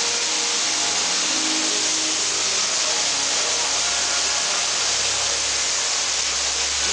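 A steady, even hissing rush with no breaks or strikes.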